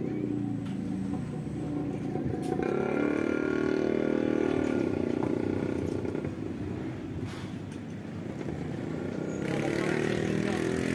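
An engine, likely a motorcycle, runs continuously with its pitch and loudness rising and falling, swelling about two seconds in and again near the end. A few sharp clicks of metal on metal come through.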